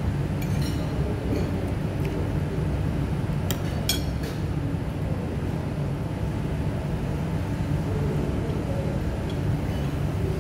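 A metal fork clinking against a ceramic plate a few times in the first four seconds, the sharpest clink about four seconds in, over a steady low rumble of room noise.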